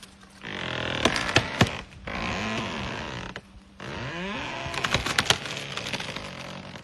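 A tree creaking and cracking as an elephant shoves against its trunk with its head. Rustling hiss, with sharp snaps about a second in and again around five seconds, and low gliding creaks in between.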